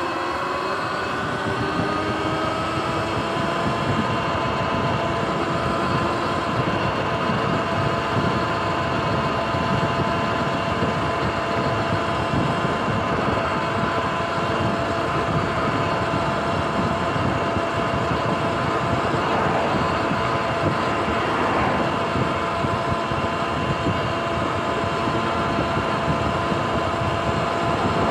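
Sur-Ron electric dirt bike's motor and drivetrain whining as it is ridden on pavement. The whine rises in pitch over the first few seconds as the bike speeds up, then holds steady at cruising speed, over a steady rush of wind and tyre noise.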